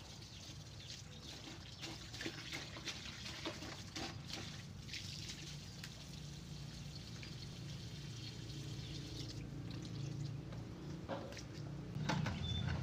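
Water from a garden hose pouring steadily into a plastic bucket. Near the end a louder, lower noise takes over.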